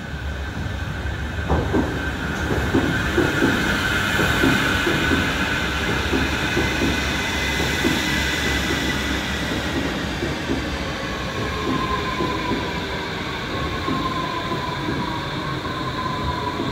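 Airport people-mover train running, with a rattle of wheel clatter and knocks under two slowly falling whines from its drive, the second and lower one coming in about two-thirds of the way through.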